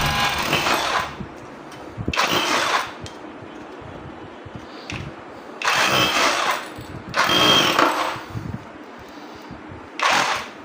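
A 20 V brushless cordless hammer drill runs in five short bursts of about a second each, its trigger squeezed and released.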